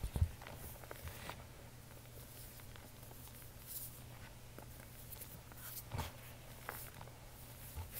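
Fingers pressing and crumbling fine white powder, giving scattered soft crunches and small taps, the loudest right at the start and about six seconds in, over a low steady hum.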